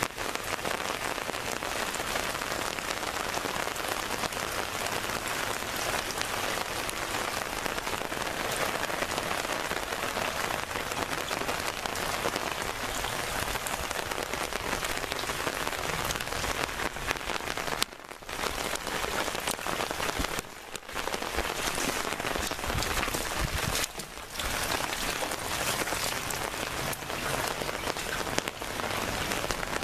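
Heavy rain pouring down on puddles and wet ground, a steady dense hiss with a few brief dips in level around the middle.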